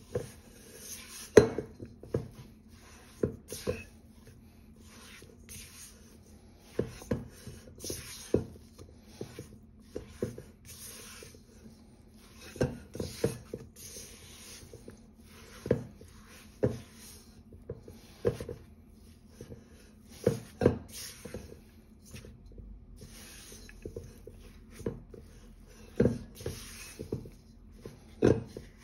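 A spatula scraping and pressing crumbly cookie dough against a stainless steel mixing bowl, with irregular sharp knocks of spatula and bowl against the metal.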